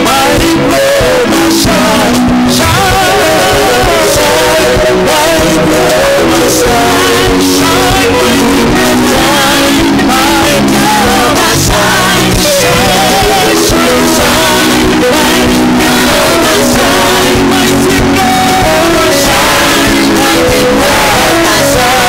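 Loud, continuous live worship music: voices singing wavering, held notes over a band with guitar.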